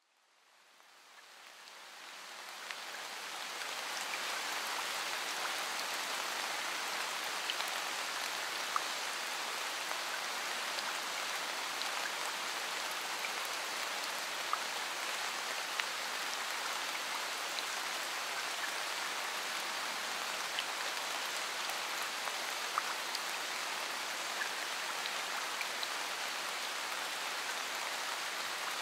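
Steady hiss of falling rain that fades in over the first few seconds, with occasional light drop ticks.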